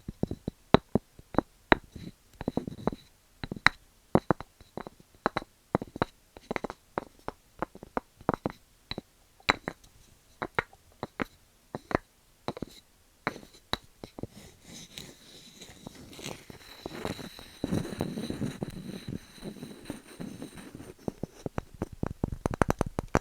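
Wooden objects being tapped close to the microphone: sharp, irregular knocks, one or two a second. Past the middle comes a few seconds of continuous rubbing noise, then tapping again near the end.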